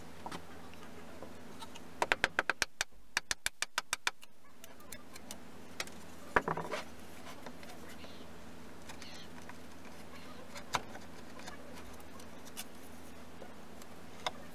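A quick run of a dozen or so sharp taps, several a second, then a single louder knock with a few small clicks after it, and scattered light clicks later on.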